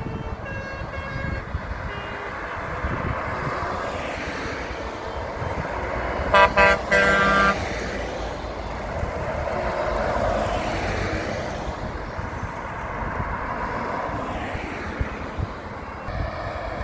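Trucks and cars of a convoy driving past, engines and tyres rumbling, swelling as a truck goes by about ten seconds in. About six seconds in, a truck's horn sounds two short toots and then a longer blast.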